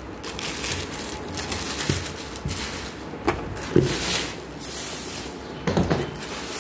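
Clear plastic protective cover rustling and crinkling as it is pulled off a hard-shell suitcase, with a few knocks as the case is handled.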